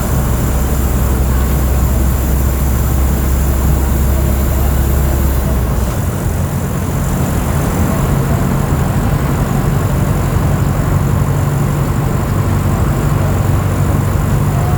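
Mercedes-Benz OF 1722M bus engine running under way. A steady low note gives way about six seconds in to a steady higher one as the revs change.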